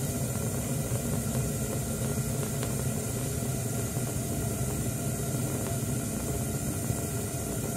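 Steady low hum and hiss in a kitchen where both burners of a two-burner gas stove are lit, with a faint click about two and a half seconds in.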